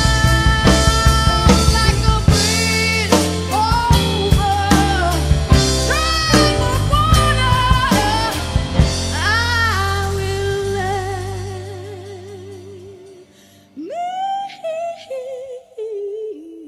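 Background music: a song with drums and singing that fades out about twelve seconds in, followed by a lone voice singing with vibrato.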